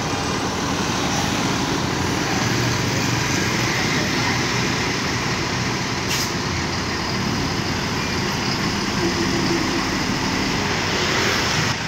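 Diesel engine of a Mercedes-Benz OH 1626 coach running steadily as the coach creeps past at close range, over steady traffic noise. A brief click about six seconds in.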